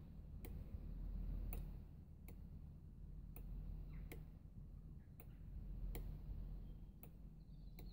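Faint sharp ticks at about one a second over a steady low hum.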